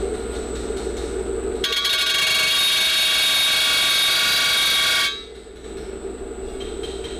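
Bench grinder with a sanding wheel running with a steady hum and thin whine; from about two seconds in, the edge of a steel car wheel rim is pressed against the spinning wheel, a loud grinding noise with several high ringing tones, which stops about five seconds in. The sanding softens the rim's sharp edges and small dings before painting.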